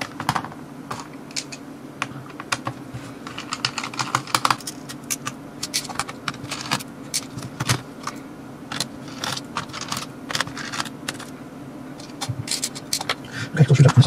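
Irregular small clicks and taps of plastic and metal as the parts and tools of an opened-up netbook are handled, over a low steady hum.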